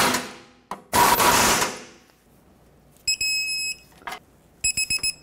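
Impact gun running in two short bursts, spinning the crossmember mounting nuts down. Then a digital torque wrench gives a steady electronic beep, with a few sharp clicks and a second beep starting near the end, signalling that the nut has reached its set torque.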